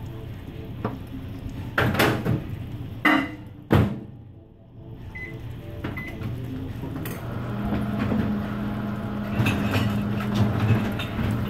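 A few sharp knocks and clatters, then two short electronic keypad beeps. About seven seconds in, a microwave oven starts running with a steady hum, heating butter to melt it.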